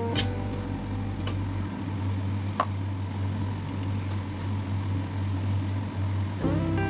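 Steady low hum and hiss from a wok of noodles frying on the stove, with one sharp clink of the metal spatula against the aluminium wok about two and a half seconds in. Background music comes in near the end.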